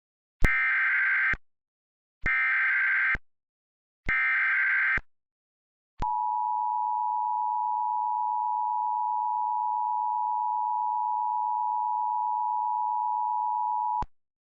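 Emergency Alert System tones: three SAME header data bursts of about a second each, spaced a second apart, then the steady two-tone attention signal (853 and 960 Hz) held for about eight seconds. The sequence announces an emergency alert, here a tornado warning.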